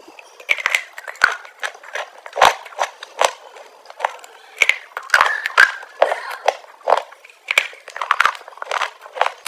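Close-miked crunching as hard, chalk-like sticks are bitten and chewed: sharp cracks and crumbling snaps, irregular, about two a second.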